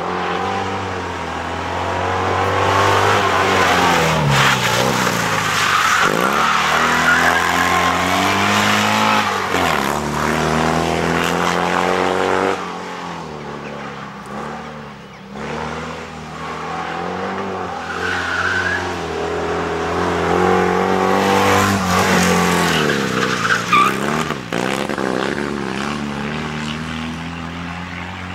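Fiat 126p rally car's small two-cylinder air-cooled engine revving hard, its pitch climbing and dropping again and again as the car accelerates, shifts and slows through a tight course. Brief tyre squeal now and then.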